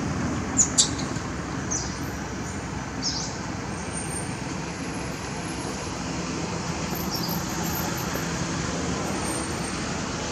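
Steady background noise, with two sharp clicks close together under a second in and a few fainter ticks after.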